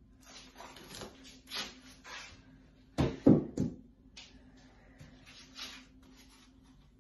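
Kitchen handling noises: light rustles and scrapes, with a short cluster of knocks about three seconds in that is the loudest sound. A faint steady hum lies underneath.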